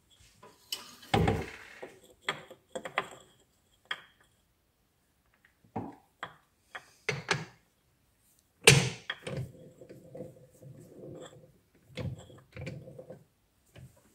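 Clunks and knocks of square bar stock being set into a metal lathe's three-jaw chuck and clamped. There is a heavy knock about a second in and the loudest one near the middle, followed by a rasping scrape lasting a few seconds.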